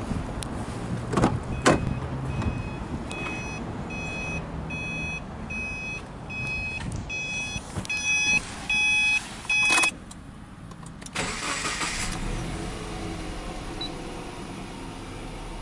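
A car door shuts with a couple of thumps, then the Subaru Impreza's warning chime beeps at an even pace, about one and a half beeps a second, for several seconds. About eleven seconds in the starter cranks briefly and the 1.5-litre flat-four engine catches and settles into a steady idle.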